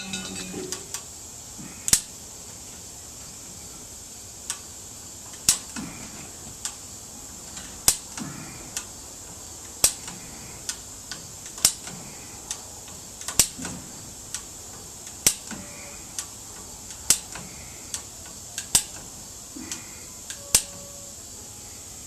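Single sharp clicks or light knocks, roughly one every two seconds, over a faint steady hiss.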